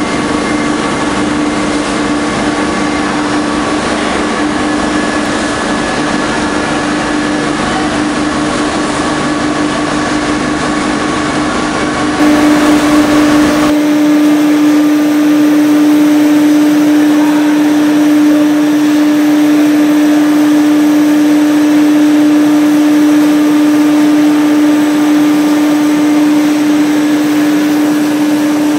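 Dough sheeting line machinery running: a steady mechanical hum with one constant tone under a noisy whir from the motors and rollers. About 13 seconds in the sound changes abruptly, becoming a little louder with less deep rumble.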